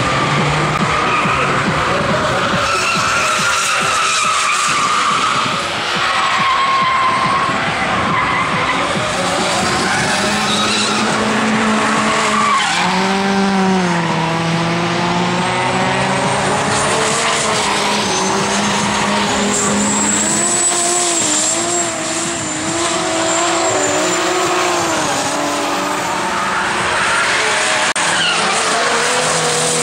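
Drift car engines running at high revs, their pitch swinging up and down again and again as the throttle is worked through the slide, with tyres squealing and skidding.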